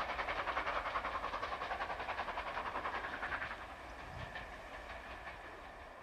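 Steam locomotive exhaust beating in rapid, even chuffs as it works its train away, fading noticeably about halfway through.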